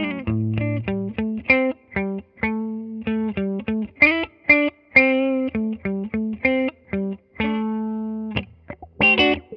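Electric guitar played through an Analog Man Block Logo envelope filter (auto-wah). A melodic line of picked single notes and double-stops, each with a bright attack that fades quickly, with a few notes held for about a second.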